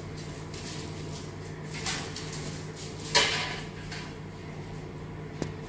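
A flat tray pushed and slid across a kitchen countertop: two short scraping swishes, the second and louder about three seconds in, then a light tap near the end, over a steady low hum.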